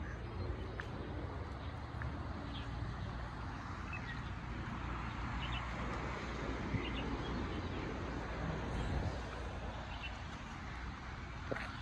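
Steady outdoor city background noise with a low rumble, broken by a few faint short chirps now and then.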